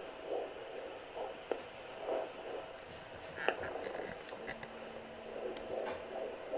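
Handheld fetal Doppler's loudspeaker giving soft rhythmic pulses, a little under one a second, over a steady hiss as the probe searches the pregnant belly for the heartbeat. A few sharp clicks from the probe are heard about halfway through.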